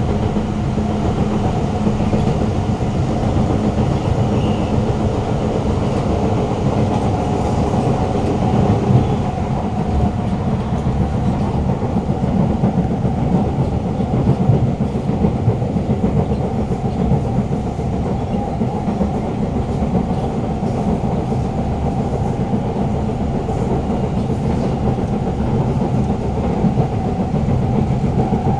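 Siemens C651 metro train heard from inside a passenger car while running at speed: a continuous wheel-on-rail rumble with the traction motors' steady tones, which are loud in this car.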